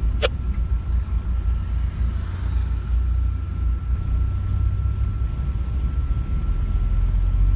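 Low rumble of a car's engine and tyres heard from inside the cabin as it moves slowly along, with a faint steady high whine over it.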